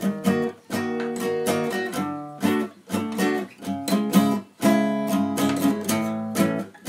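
Background music: a guitar strumming chords, one sharp-edged chord stroke after another.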